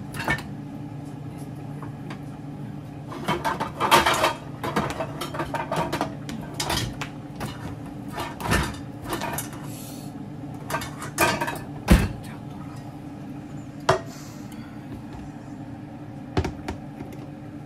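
Kitchen clatter: dishes, pots and utensils knocked and set down in a run of sharp clinks and knocks, the loudest one about two-thirds of the way through, over a steady low hum.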